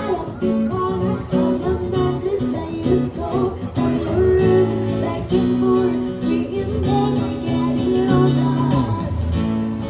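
Music: acoustic guitar strumming with singing.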